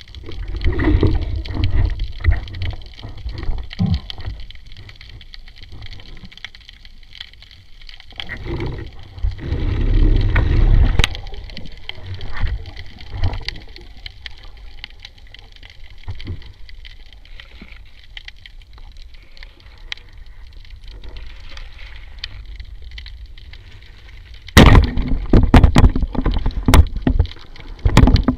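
Water sounds picked up through an underwater camera housing: muffled low rumbles and gurgling with scattered small clicks. A little before the end it turns much louder and busier, with repeated knocks and splashing-type noise.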